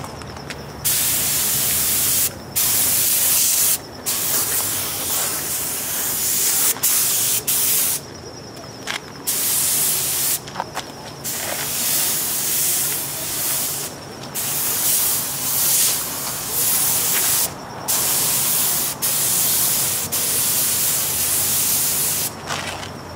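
Cup-fed air spray gun hissing in long passes as the trigger is held and released, spraying a sealer/primer coat, with about eight short breaks between passes.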